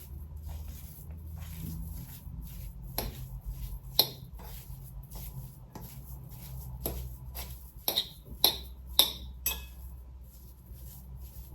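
Metal utensil clinking and scraping against a bowl at an uneven pace while mashing and mixing cottage cheese by hand, with the sharpest knocks about four seconds in and a cluster of them around eight to nine seconds in.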